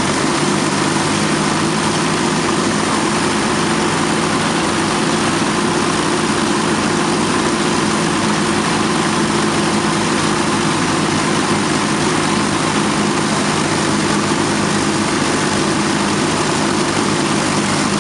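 Avro Lancaster bomber's four Rolls-Royce Merlin V12 engines and propellers running together, a steady, even drone that holds the same pitch and level throughout.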